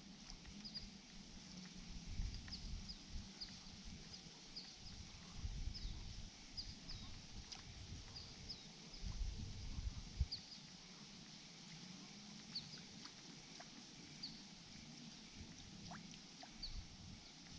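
Quiet backwater ambience: a small bird chirping over and over in short, high, falling notes, over irregular low bumps and rumble, loudest about two, six and ten seconds in.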